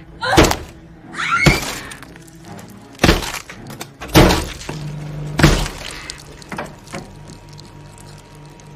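Repeated heavy blows of a printer smashed down onto a person's head: about five hard hits roughly a second apart, then two lighter knocks. A short cry follows the second hit, and a low music drone comes in about halfway through.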